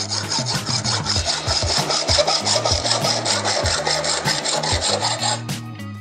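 Hand hacksaw cutting through a metal bicycle fork steerer tube held in a bench vise, steady back-and-forth rasping strokes that stop near the end. Background music with a beat underneath.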